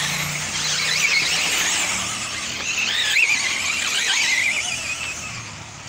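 Electric 4WD off-road RC buggies racing: a high-pitched whine from their electric motors and geared drivetrains over a hiss, wavering up and down in pitch about halfway through.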